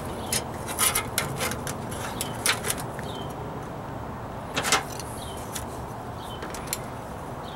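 Scattered light clicks and metal taps as a sheet-metal patch is handled on a steel cart top and spring clamps are snapped onto it, over steady background noise.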